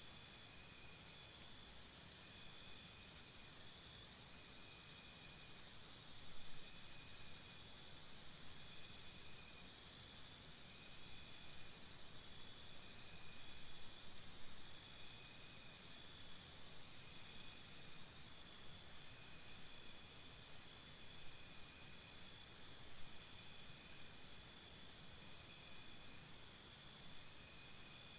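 Crickets chirping: a high, rapidly pulsed trill that comes in bouts of a few seconds and repeats through the whole stretch, with other insects calling steadily and more faintly underneath.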